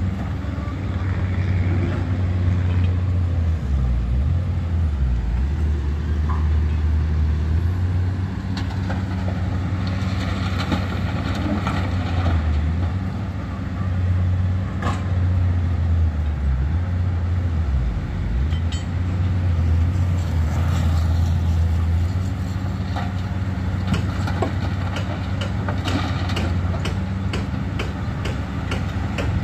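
Komatsu hydraulic excavator's diesel engine running under load as it digs and loads, its low hum dipping and rising as the hydraulics work. Scattered sharp knocks and clicks sound over it, more of them near the end.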